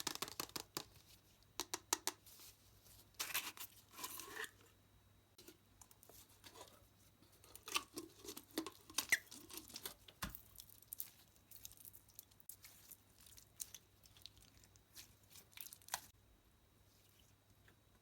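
Slime being handled and pressed by hand, giving irregular sticky clicks and crackles that stop about sixteen seconds in.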